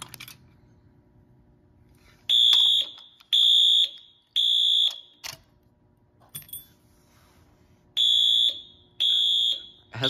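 Fire alarm sounder on an FCI 7100 system, set off by a pull station, beeping the code-3 temporal pattern: a group of three short, high-pitched beeps about two seconds in, then after a pause of about three seconds the next group starts near the end. The pause between groups of three is unusually long. A small click sounds at the start as the pull station's key is turned.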